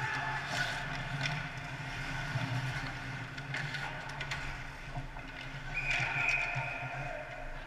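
Ice hockey play heard from behind the net: skates scraping on the ice and sharp clacks of sticks and puck, over a steady low rink hum.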